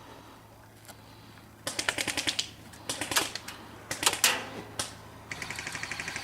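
Airsoft electric guns firing: after a quiet start, a quick burst of rapid clicking shots, then a few shorter bursts and single shots, and near the end a sustained full-auto rattle of about a dozen shots a second.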